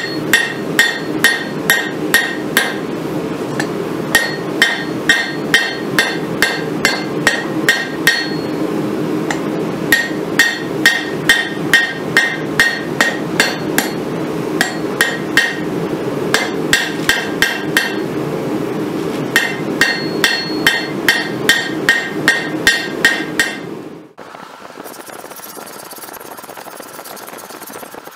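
Hand hammer striking a red-hot railroad spike on a steel anvil, about three ringing blows a second in runs of a few seconds with short pauses between, over a steady low hum. The hammering and hum stop suddenly about 24 seconds in, leaving a faint steady hiss.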